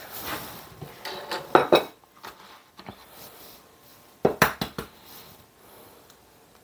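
A utensil clinking against a small glass bowl of egg yolks, then a quick run of sharp taps about four seconds in as an egg is cracked on the countertop edge.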